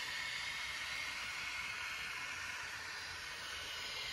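Märklin mini-club Z scale model trains running on the track: a steady, high whirr and hiss from their small electric motors and wheels.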